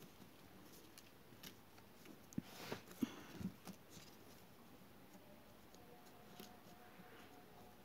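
Faint rustling and tapping of paper strips being woven by hand, with a short cluster of louder crinkles and clicks near the middle.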